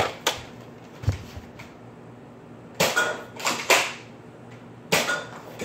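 Nerf foam-dart blaster in use: a run of sharp clacks and pops, with a busier cluster about three seconds in and another near the end.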